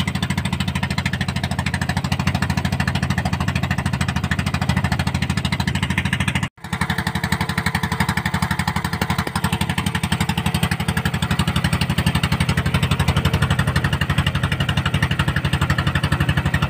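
Engine of a motorised outrigger boat running steadily under way, a fast, even putter. It drops out for an instant about six and a half seconds in.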